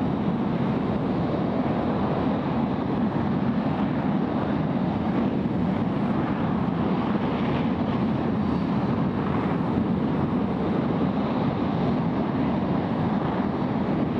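J-2X liquid-hydrogen/liquid-oxygen rocket engine firing in a static test: a steady, deep rushing rumble with hiss above it, holding an even level throughout.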